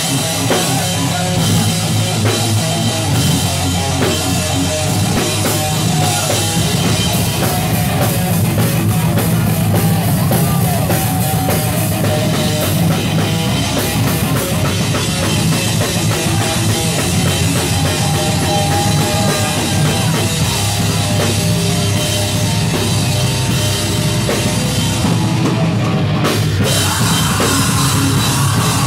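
A heavy metal band playing live: drum kit with a pounding bass drum under electric guitar and bass guitar, loud and steady throughout.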